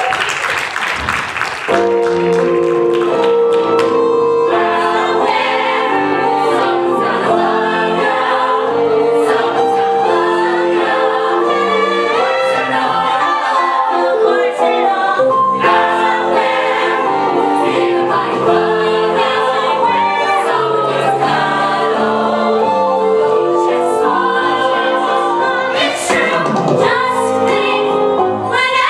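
A chorus of voices singing a musical-theatre number with instrumental accompaniment, the full song coming in about two seconds in.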